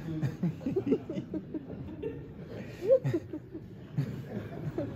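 Audience laughing and chuckling, several voices at once, with one louder laugh about three seconds in.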